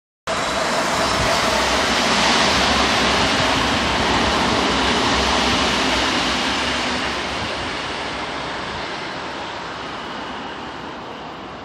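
Tokyu Meguro Line electric commuter train running along the track and moving away. Its running noise is loudest in the first few seconds and fades steadily as it recedes.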